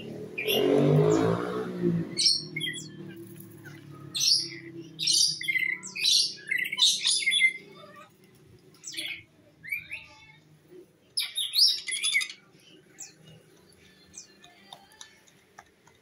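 Rainbow lorikeets giving short, shrill screeching calls, a rapid string of them for several seconds and then sparser, fainter calls. A brief burst of noise comes first.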